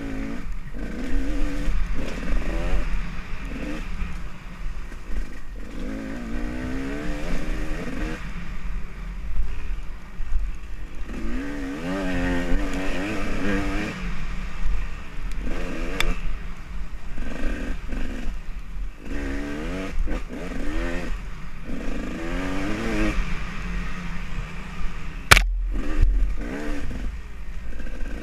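Dirt bike engine running hard on a trail ride, its pitch rising and falling over and over as the throttle is opened and closed. One sharp knock stands out about three seconds before the end.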